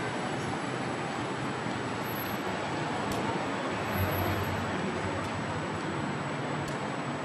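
Steady street traffic noise, an even rush of passing vehicles, with a brief low thump about four seconds in.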